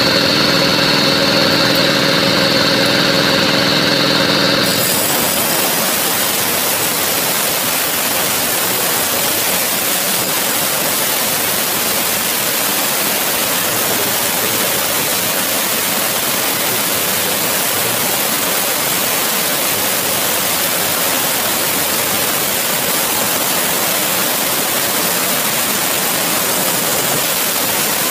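Large circular stone-cutting saw spinning free with a steady whine, then, about four and a half seconds in, biting into a hard river stone. From there on it gives a steady loud hissing grind of the blade through the stone, cut wet with water spraying.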